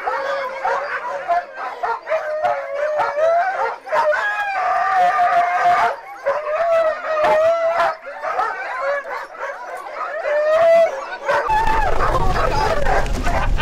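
A pack of sled dogs howling and barking over one another, the eager chorus of a team being hitched to a training cart before a run. Near the end a low rumble comes in as the cart moves off behind the team.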